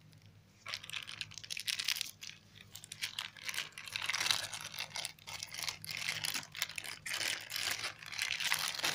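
Clear plastic bag crinkling in irregular crackly bursts as hands pull it open to unwrap a USB cable, starting just under a second in.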